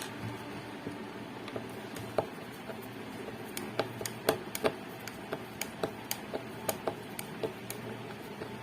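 Light, irregular clicks and taps as the casing of a 4.1 home theater amplifier unit is worked open by hand, most of them bunched in the middle stretch.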